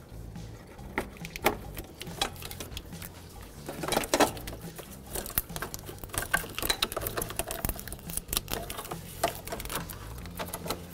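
Irregular light clicks and taps of plastic wiring-harness clips and connectors being worked loose by hand, with a denser clatter about four seconds in, over a low steady hum.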